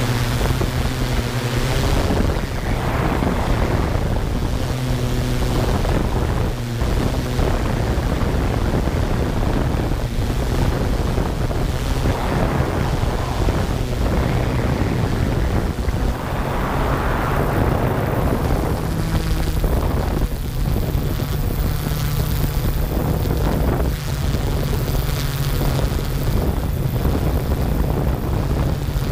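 Yuneec Q500 quadcopter's propellers droning steadily in flight, recorded from the drone's own camera, with heavy wind buffeting on the microphone.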